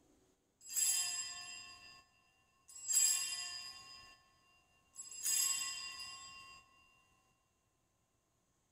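Altar bell rung three times, about two seconds apart, each ring fading away. It marks the elevation of the consecrated host at the consecration of the Mass.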